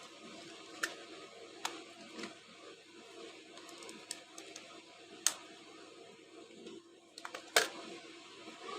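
Handling noise of small parts: a few sharp, scattered clicks and taps, the loudest about three-quarters of the way in, over a faint background hiss.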